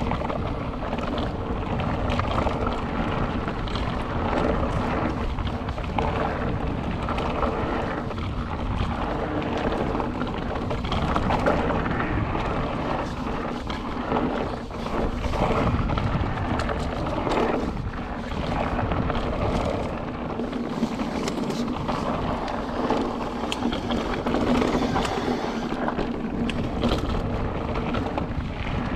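Mountain bike riding down a dirt trail: wind buffets the microphone over steady tyre rumble, with frequent knocks and rattles from the bike over rough ground.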